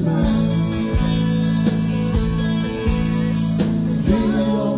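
Live rock band playing an instrumental passage without vocals: electric guitars over held bass notes and drums.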